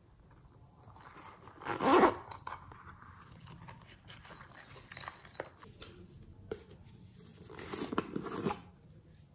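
Hands handling soft modelling clay and plastic toy containers: a loud, crackly squish about two seconds in, a few small clicks and taps, then another longer crackly stretch near the end.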